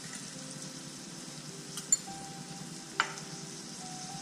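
Chopped shallots and garlic sizzling steadily in butter and oil in a hot pan, with two sharp clicks about two and three seconds in.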